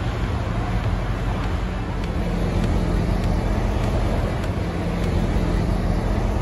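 Steady low rumble of idling tour coaches and road traffic.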